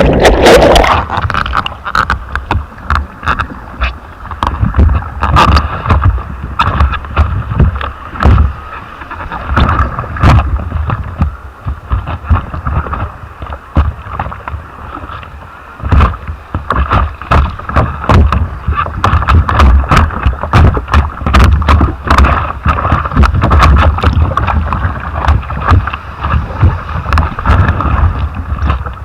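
Wind buffeting the camera microphone: a loud, uneven low rumble broken by frequent sharp pops.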